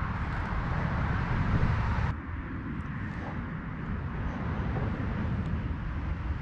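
Steady autobahn traffic noise, a low rumble with a higher hiss over it that cuts off abruptly about two seconds in.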